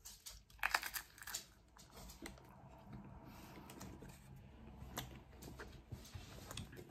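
Close-up eating of crispy battered fish: a cluster of crunches as it is bitten and chewed from about half a second to a second and a half in, then quieter chewing with scattered wet mouth clicks.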